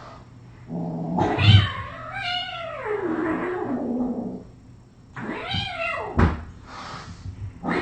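Cat yowling: one long cry lasting about three and a half seconds that rises and falls in pitch, then a shorter cry, with a single sharp knock about six seconds in.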